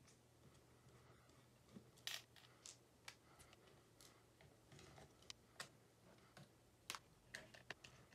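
Faint, irregular clicks and taps of hands and small tools handling an HP EliteBook x360 laptop's plastic and metal parts during disassembly. The sharpest clicks come about two seconds in and again near seven seconds.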